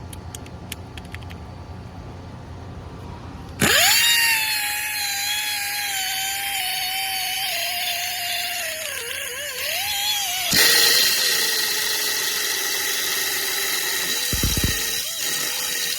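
Mini pneumatic impact driver (LEMATEC LE-ID413) starting up suddenly after a few seconds of faint clicks, running with a high whine from its air motor. The pitch sags and wavers under load. About two-thirds of the way through it changes to a lower, steadier whine with more hiss.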